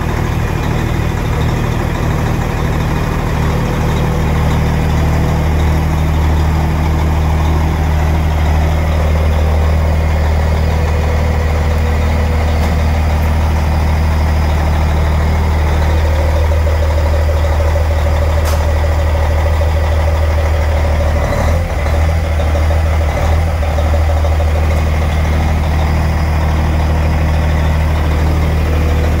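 Peterbilt long-hood semi truck's Detroit Diesel engine idling steadily.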